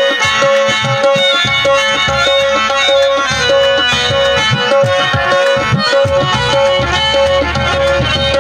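Qawwali music: a harmonium playing a held, repeating melody over a quick hand-drum rhythm.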